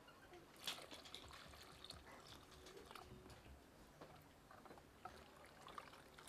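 Faint sounds of a steel ladle stirring sambar in a cooking pot, the liquid trickling, with one sharp clink under a second in and a few light ticks.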